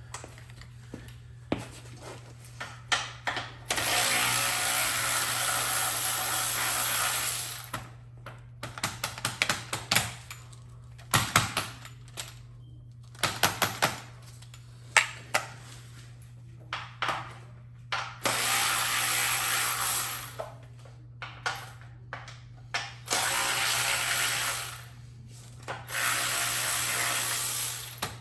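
Power drill/driver run in four bursts of a few seconds each, backing out fasteners on a sprayer being taken apart, with sharp clicks and clatter of hand tools and parts between the bursts. A steady low hum runs underneath.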